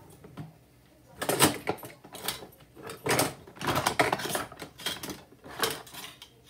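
Irregular clattering and rattling of kitchen items being handled, in a dozen or so short bursts that start about a second in and stop near the end.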